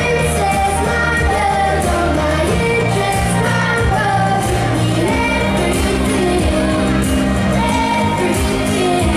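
Pop song performed live: a solo singer's voice carries the melody over steady bass notes and accompaniment.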